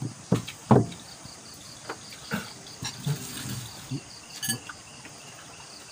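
Scattered short knocks and clatter of eating by hand off plates and bowls, the loudest about a second in, over a steady trilling of night insects.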